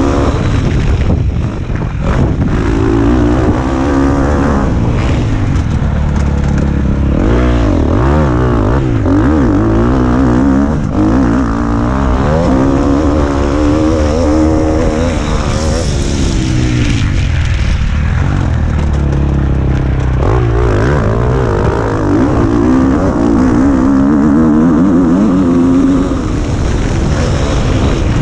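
KTM motocross bike engine revving up and down again and again as the rider accelerates, shifts and backs off around the track, heard close from the rider's helmet.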